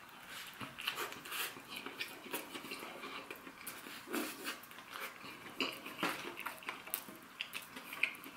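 Chewing a mouthful of cheeseburger slider: quiet, irregular clicks and smacks from the mouth.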